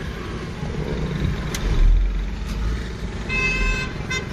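Low rumble of a Suzuki car driving over a rough road, heard from inside the cabin and heaviest about two seconds in. A vehicle horn toots for half a second about three seconds in, then gives a brief second toot.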